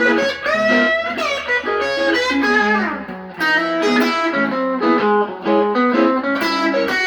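Guitar playing a quick single-note run through the D-flat minor pentatonic scale with chromatic passing notes, some notes sliding up and down in pitch.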